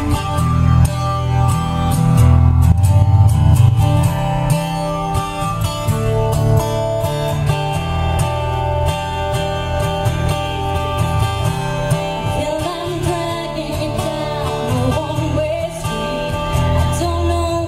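Music with guitar over a strong, steady bass; a voice starts singing over it about twelve seconds in.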